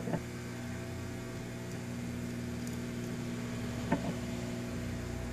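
Hot air rework station running: a steady blower hum with a light hiss of air. A light click about four seconds in.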